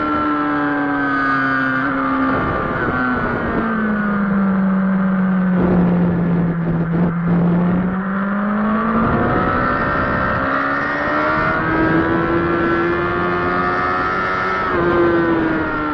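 Kawasaki sport bike's engine heard on board at track speed, high in the revs. Its pitch falls as the rider rolls off into a corner, stays low for a few seconds through the turn, then climbs steadily as the bike accelerates out, before dropping again near the end, with wind rushing over the fairing.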